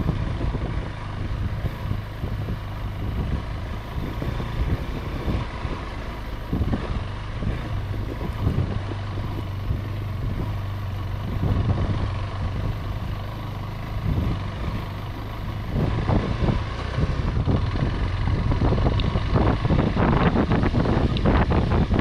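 Motorcycle engine running steadily at low trail speed, with wind on the microphone. From about two-thirds of the way in, irregular knocks and rattles grow louder as the bike jolts over the rutted dirt track.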